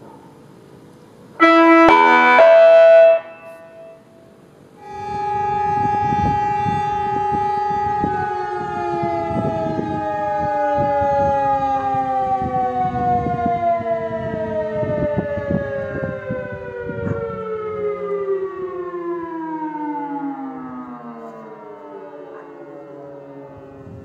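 An electronic siren gives a short, loud chime of several tones. A second siren then sounds a steady multi-tone note, which from about halfway through slides slowly down in pitch and fades as it winds down.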